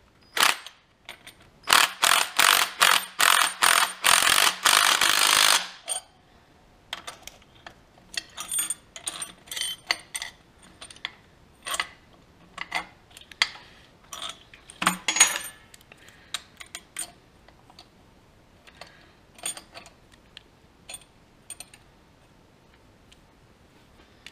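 Cordless impact driver hammering a nut tight on an eye bolt: a few short bursts, then a longer run that stops about six seconds in. After that come scattered metallic clinks and taps as a wrench works the eye bolt against the steel plate.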